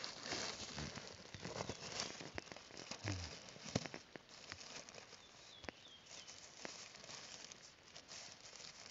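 Black plastic garbage bag crinkling and rustling as its neck is gathered and tied shut by hand, in short irregular rustles that grow quieter after the first four seconds.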